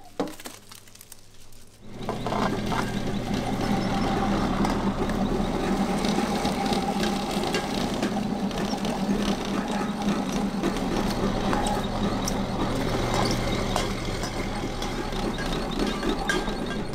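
A steady machine hum with scattered clicks and clatter, coming in after a quieter first two seconds.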